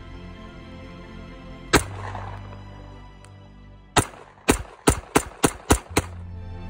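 Umarex Glock 17 Gen 5 blank pistol firing 9 mm PAK blanks: a single shot, then about two seconds later a quick string of seven shots in about two seconds, over background music.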